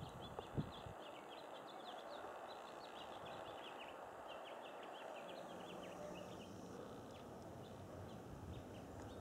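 Faint twittering of small birds: many short, high chirps in quick, irregular succession that thin out after about six seconds, over a steady outdoor background hum. A soft low bump shortly after the start.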